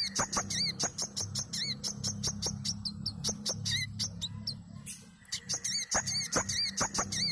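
Brown-throated sunbird (kolibri kelapa) singing: a fast run of sharp, high chirps and short arched whistled notes, the phrase repeating with a brief lull about five seconds in, over a steady low hum.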